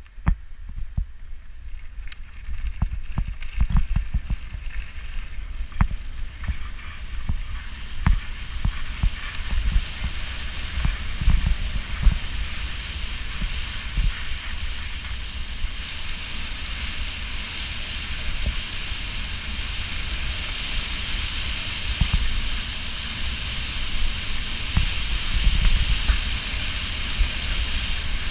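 Mountain bike descending a dirt forest trail, heard from a helmet-mounted GoPro: wind buffeting the microphone, tyres rolling over the dirt, and frequent knocks and rattles from the bike over bumps. The rolling hiss grows louder from about halfway as the speed builds.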